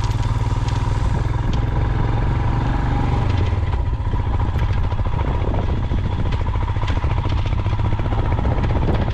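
Motorcycle engine running steadily while the bike is ridden, with a thin steady tone alongside it.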